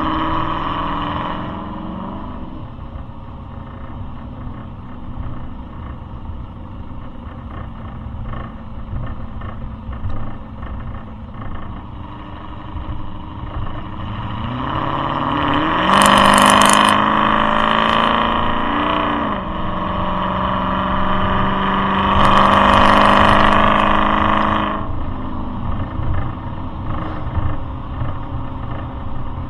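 Cammed 5.7 L Hemi V8 of a Dodge Durango R/T, breathing through long-tube headers and a Borla exhaust, pulling hard twice: the engine note climbs about halfway in and stays loud for a few seconds, drops back, then swells loud again for a few seconds.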